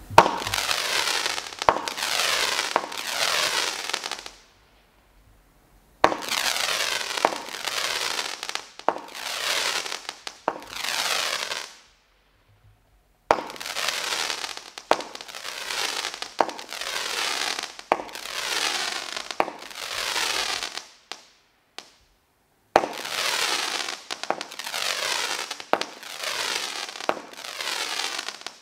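Mighty Cobra consumer firework cake firing shot after shot, each a sharp pop followed by a hiss of about a second as the shot rises on a trail of sparks. The shots come in four quick runs of four to seven, with short pauses between the runs.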